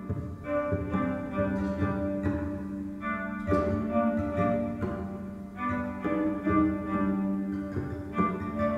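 A violin played with the bow: a tune of held notes that change every half second to a second, mostly in the instrument's lower range.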